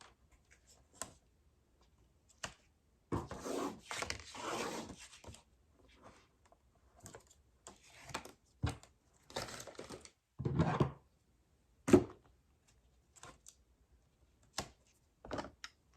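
Backing being peeled off the adhesive on a paper pocket, with paper rustling and scraping in irregular bursts. There are small clicks throughout and one sharp tap about twelve seconds in.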